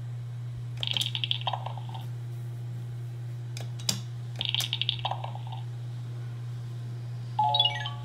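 Zoomer Zuppies Candy robot puppy toy playing electronic chirps and beeps through its small speaker as its nose button is pressed: two bursts of warbling chirps, a sharp click between them, and a quick falling run of beeps near the end. A steady low hum runs underneath.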